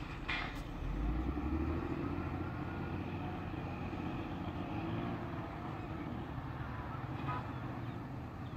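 A motor running with a steady low rumble; a faint engine tone rises and then falls slowly over the first few seconds.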